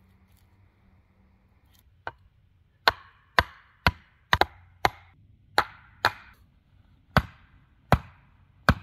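A sharpened wooden stake being driven into the ground by blows on its top: about a dozen sharp wooden knocks, starting about two seconds in, at roughly two a second and then a little slower.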